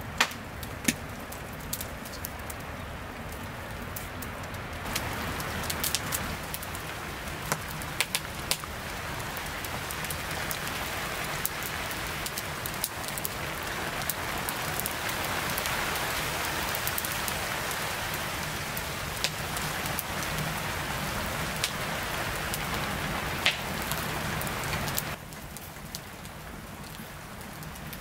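Steady hiss of rain with sharp crackles and pops from a burning log fire. The hiss drops suddenly about three seconds before the end.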